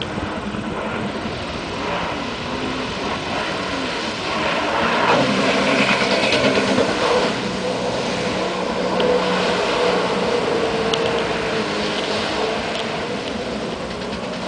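Jet ski engine running at speed, its whine wavering in pitch as it carves turns across the water, louder for a few seconds in the middle as it sweeps closer.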